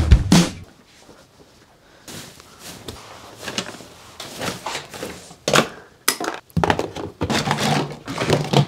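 Faint rustling, then a run of knocks and thunks from things being handled and set down, ending in plastic toys clattering into plastic storage boxes.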